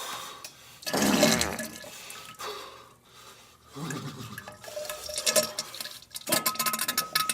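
Watery gurgling and splashing from a toilet, in several bursts, the loudest about a second in. Music with a ticking beat comes in near the end.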